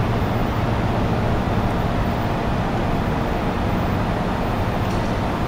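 Steady hum and hiss of a laser welding machine's equipment running, its cooling fans included, with a faint click near the end.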